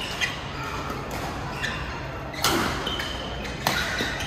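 Badminton rally: several sharp racket hits on the shuttlecock, the loudest about two and a half and three and a half seconds in, with short high squeaks of shoes on the court.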